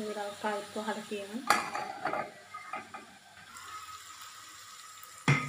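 A spoon stirring and scraping ridge gourd peel frying in a metal pan, with sizzling and metal clinks. There is a sharp knock of the spoon on the pan about a second and a half in and another near the end.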